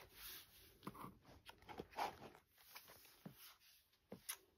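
Faint handling noises: a few scattered soft taps and rustles, like a plastic folder being lifted off a canvas, over quiet room tone.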